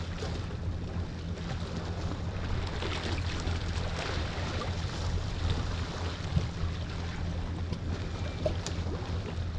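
Seaside shore ambience: a steady low rumble under an even hiss of wind and water.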